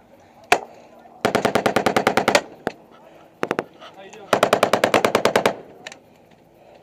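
Automatic gunfire: a single shot, then a burst of about ten rounds a second lasting just over a second, a few single shots, a second burst of the same length, and one last shot.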